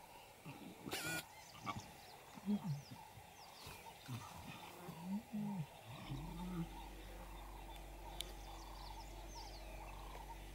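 Lions making a few short, low calls in the first six seconds. About six seconds in, a steady low hum sets in.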